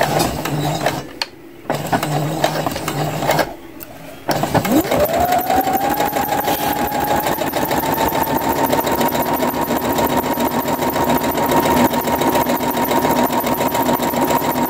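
Electronic home sewing machine stitching a seam through cotton fabric. It falls quiet twice in the first few seconds. Then, about four seconds in, its motor winds up with a rising whine and it sews steadily at full speed.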